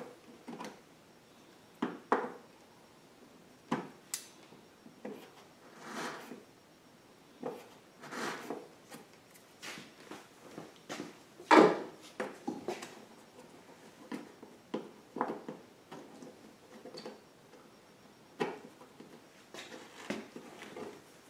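Intermittent scrapes, clicks and knocks of hand work on a plastic generator casing around a freshly drilled fuel-fitting hole, with one louder knock about halfway through.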